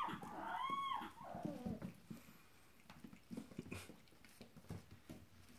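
A puppy whining in high, rising-and-falling calls, twice in the first second and a half, then soft taps and scuffles.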